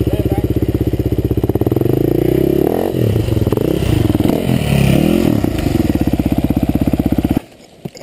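Dirt bike engine running at a fast idle, revved up and down several times in the middle, then cutting out suddenly near the end.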